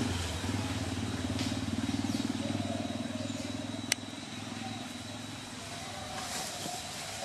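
A motor vehicle engine running steadily and growing fainter, with a single sharp click about four seconds in.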